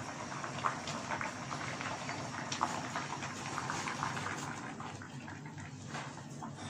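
Water at a rolling boil in a stainless steel saucepan of raw mango slices, a steady bubbling with many small pops.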